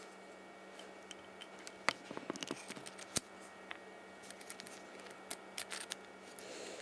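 Scattered small clicks and light taps of Shimano 105 SPD pedal parts (axle, washers, seals) being handled and fitted together while greasing the pedal, clustered about two seconds in and again around five to six seconds in.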